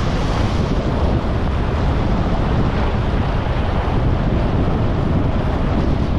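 Steady rush of wind buffeting a GoPro's microphone during a downhill ski run, mixed with the hiss of skis sliding over snow.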